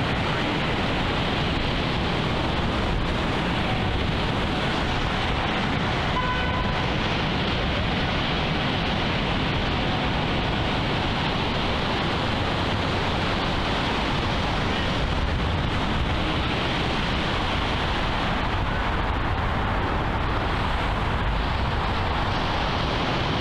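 Steady, unbroken outdoor noise of ocean surf mixed with road traffic. A short, high two-note tone sounds about six seconds in.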